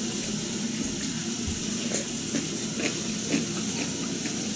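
A steady hiss, with a few faint light clicks over it.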